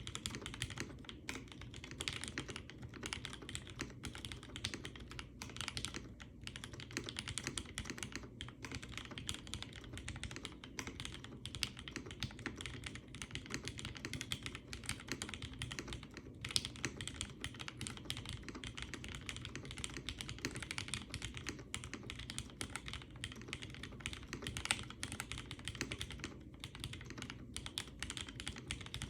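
Continuous fast typing on a custom mechanical keyboard with lubed Cherry MX Black linear switches in an aluminium plate and GMK keycaps: a dense, steady stream of key presses, with occasional heavier strokes.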